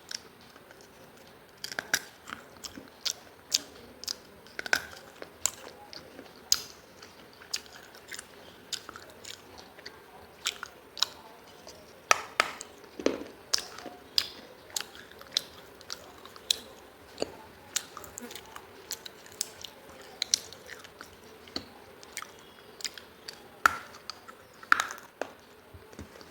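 Close-up crunching and chewing of hard baked clay, pieces of a clay diya lamp, as sharp, brittle cracks that come irregularly, about one or two a second, beginning about two seconds in.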